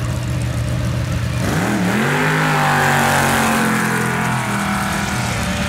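Jet sprint boat engine idling, then revving hard about one and a half seconds in, its pitch held high and slowly easing off, with the rush of the water jet and spray rising over it.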